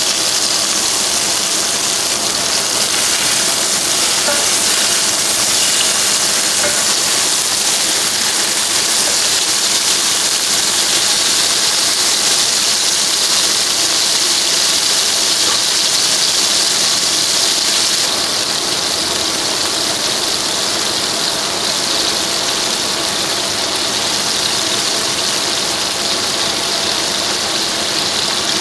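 Beef burger patties sizzling steadily in hot fat in a frying pan, a loud, even, high hiss. It drops a little in level about two-thirds of the way through.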